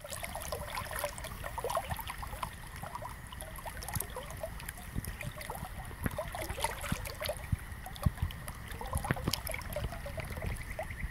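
Shallow river water trickling and gurgling over weed beds, a continuous busy run of small bubbling blips.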